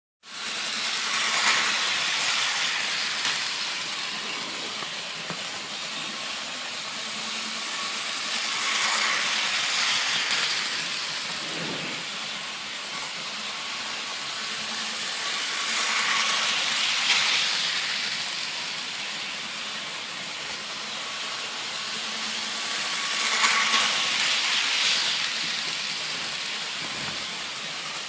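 Chattanooga model train set running on its track: a steady hissing, rushing sound with a faint hum, swelling and fading four times at intervals of about seven to eight seconds as the train laps the layout.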